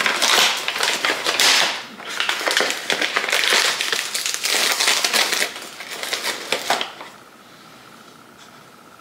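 Paper sugar bag crinkling and rustling while granulated sugar is scooped and poured from it, stopping about seven seconds in.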